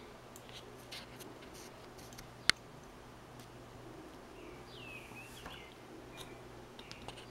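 Quiet hand soldering of a USB connector onto a circuit board: faint small ticks of the iron tip and parts, with one sharp click about two and a half seconds in, over a low steady hum. A few faint high chirps come around five seconds in.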